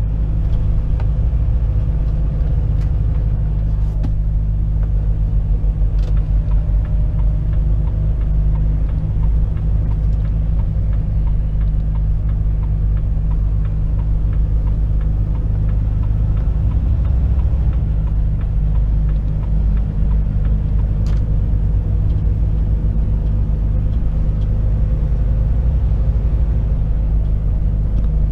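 Steady low rumble of a Volvo FH 460 truck heard from inside its cab while cruising on a motorway: the inline-six diesel and tyre/road noise run evenly, with a few faint clicks.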